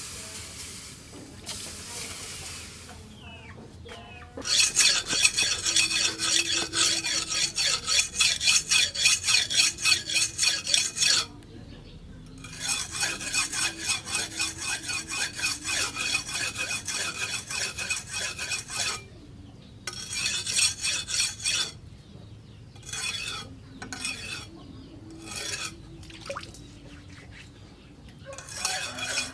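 Steel knife blade rubbed with quick back-and-forth strokes, about three a second, ringing with each stroke. It comes in long spells, then shorter ones with pauses between.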